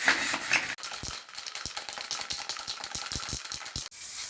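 Aerosol spray paint can being shaken, its mixing ball rattling in a rapid run of sharp clicks.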